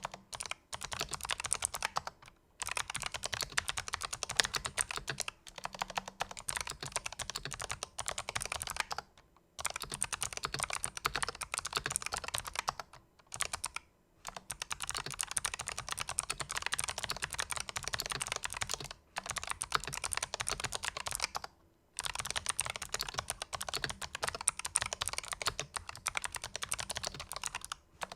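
Typing on a Razer Huntsman Elite keyboard with purple clicky switches, fully lubricated. The fast keystrokes come in runs of several seconds, with brief pauses between them.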